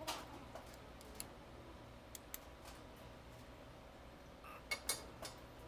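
Hand tools clicking and clinking against the metal of a diesel engine's cylinder head: scattered sharp taps, with two louder clinks close together near the end.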